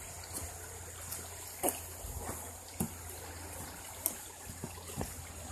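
Faint stream trickling under a wooden footbridge, with about five soft footsteps knocking on the weathered planks roughly a second apart.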